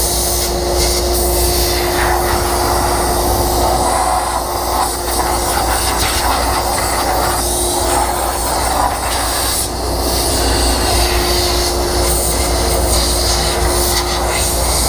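Compressed air blowing dust out of the inside of a table saw: a loud, steady rushing hiss that wavers a little as the nozzle moves. Under it runs the steady hum of the vacuum connected to the saw.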